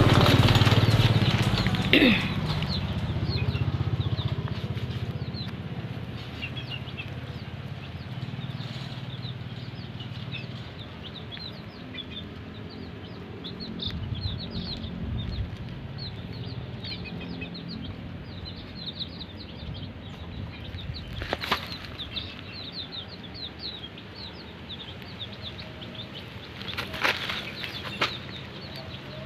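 Birds chirping in many short, quick calls. A low hum fades away over the first several seconds, and a few sharp clicks come later on.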